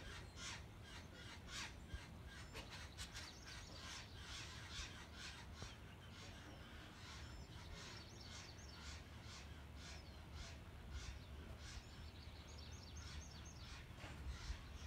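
Faint outdoor birdsong: many short bird chirps and calls throughout, over a low steady rumble.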